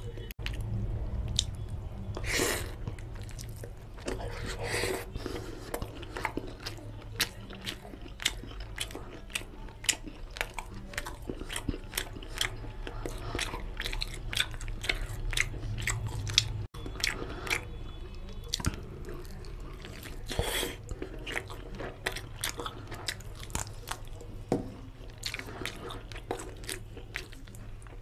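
Close-miked eating: chewing and biting chicken curry, with pieces pulled apart by hand, heard as a dense run of short wet clicks. A steady low hum sits underneath.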